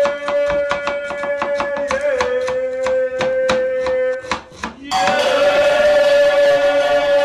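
Kitchen knife chopping red onion on a plastic cutting board, quick even taps about four a second, over background music with a long held sung note. The chopping stops about four and a half seconds in and the music gets louder.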